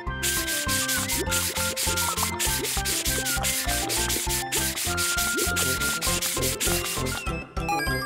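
Cartoon scrubbing sound effect: a sponge rubbed rapidly back and forth in quick repeated strokes, several a second, stopping near the end, over light background music.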